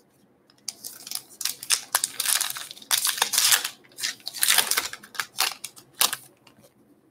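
Wrapper of a 2020 Topps Gypsy Queen baseball card pack being torn open and peeled back from the cards: a run of uneven tearing and crinkling rustles lasting about five seconds, stopping near the end.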